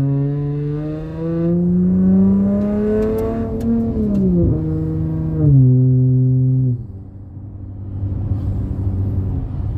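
Dodge Challenger with a MagnaFlow Magnapack exhaust accelerating. The exhaust note climbs for about three and a half seconds, then drops with a gear change. It steps down once more, and just before seven seconds it falls away to a lower, quieter note as the throttle comes off.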